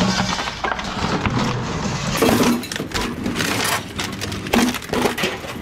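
Hot water heater's steel tank being shoved off a truck bed: scraping and clanking metal with repeated knocks, then a stretch of crashing and rattling about two seconds in as it slides and drops onto the scrap pile.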